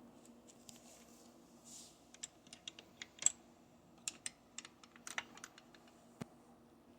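Light, irregular clicks and taps of metal sockets being handled and set into the moulded plastic slots of a mechanic's tool set case, the sharpest click a little past three seconds in.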